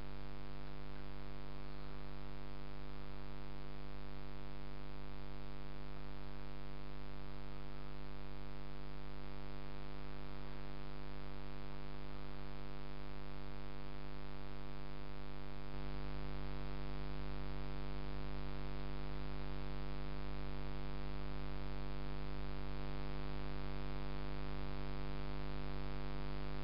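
Steady electrical hum with many evenly spaced overtones, unchanging in pitch, getting a little louder about sixteen seconds in.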